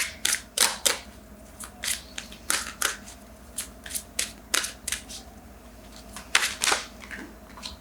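A deck of tarot cards being shuffled by hand: a string of short, irregular clicks and swishes of card against card.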